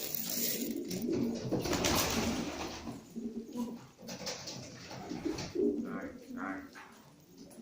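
Domestic pigeons cooing repeatedly in a small enclosed space, with a rustle in the first two seconds or so.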